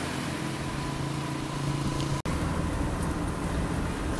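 A vehicle engine running with a steady low hum; about halfway through it cuts abruptly to the steady rumble of engine and road noise heard from inside a moving van.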